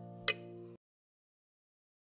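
Background music with held chords and a sharp click, fading and then cutting off suddenly under a second in, leaving silence.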